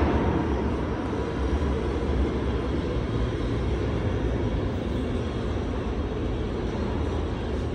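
Steady low rumble with a fainter hiss above it, the ambient noise of an underground subway station platform, with no train passing.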